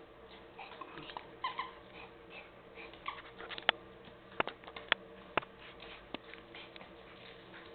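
Small terrier playing with a plush toy on a tile floor, with faint short squeaky sounds, then several sharp clicks and taps about halfway through, the loudest sounds here.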